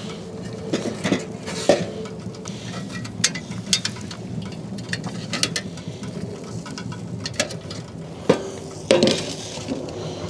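A cooking fire crackling, with scattered clicks and knocks as larger pieces are put in, and one sharper knock about eight seconds in.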